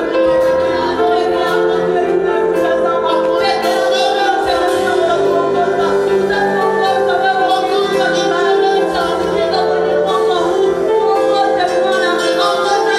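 Worship music with singers, a choir sound over sustained keyboard chords.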